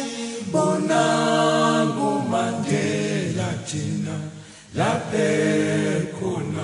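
A choir of voices singing long held chords in harmony, apparently unaccompanied, in phrases that break briefly about four and a half seconds in.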